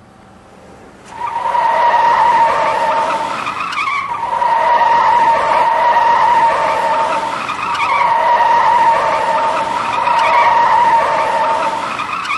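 Tyre squeal, a long steady screech that starts about a second in and rises and dips slightly every few seconds, the sound of a car skidding.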